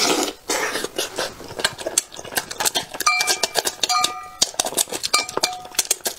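Close-up wet eating sounds from a spicy braised fish: a sucking slurp at the start, then chewing with many sharp smacks and clicks. Short, clear ringing tones come in a few times after the middle, chopsticks touching the brass bowl.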